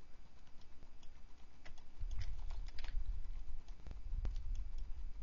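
Scattered clicks of a computer mouse and keyboard on a desk, with a low rumble underneath from about two seconds in.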